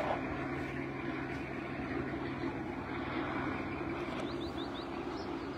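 Steady low engine drone with a constant hum, unchanging throughout. About four and a half seconds in, a bird gives four quick rising chirps.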